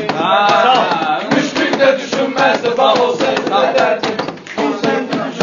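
Meyxana performance: a voice chanting rhymed verse over a steady percussive beat.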